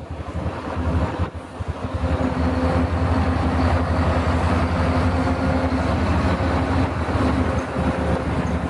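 Heavy diesel machinery engine running steadily, a low hum under broad mechanical noise, a little quieter for the first second or so.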